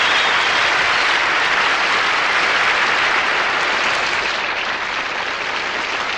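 A large audience applauding steadily, the applause easing off over the last couple of seconds.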